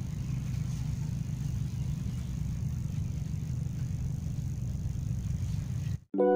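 Steady low rumble of outdoor background noise that cuts off abruptly near the end. Soft music with held notes then begins.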